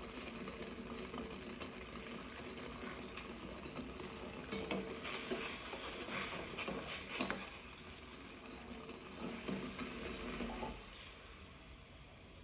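Sugar syrup boiling in a stainless steel pot while a steel spoon stirs it, scraping and clinking against the pot. The bubbling dies down near the end as the heat is turned off.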